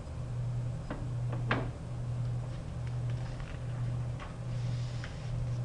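A low background hum that pulses on and off about once a second, with a few faint clicks.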